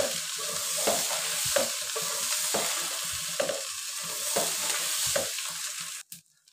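Rice and green peas frying in ghee and oil in an aluminium pot, sizzling steadily as a wooden spatula stirs them and scrapes the pot about once a second: rice being sautéed for pulao. The sound cuts out suddenly near the end.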